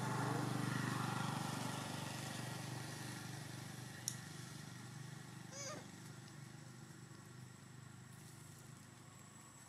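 Engine of a passing motor vehicle, a steady low hum that fades away over several seconds. A sharp click comes about four seconds in, and a brief high chirp a little later.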